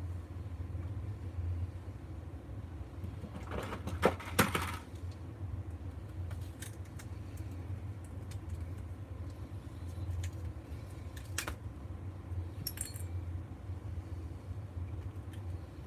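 Small scrap parts being handled and set down on a wooden workbench: scattered clicks and clinks, loudest in a short clatter with two sharp knocks about four seconds in. A steady low hum runs underneath.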